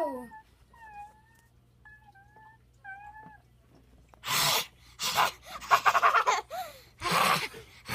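Dog whining in short, high, wavering cries through the first few seconds, then four loud bursts of harsh noise, each about half a second long.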